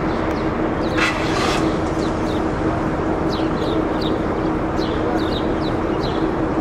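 Small birds chirping over and over, each chirp short, high and falling in pitch, over a steady background hum. One brief harsher call comes about a second in.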